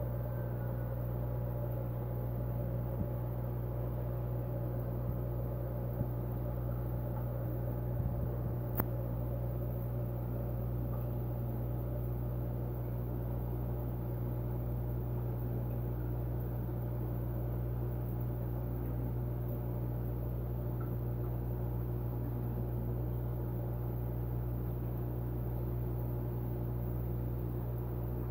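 Steady low electric hum of an aquarium pump running, with a few soft clicks, one sharper than the rest about nine seconds in.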